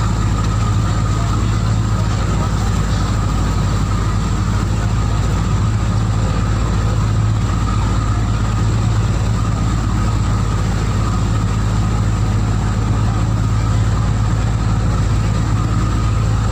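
Boat engine running steadily under way, a constant low drone with the rush of the hull through the water.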